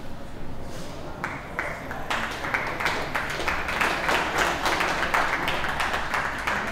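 Audience clapping, starting about a second in and growing denser, the separate claps still audible.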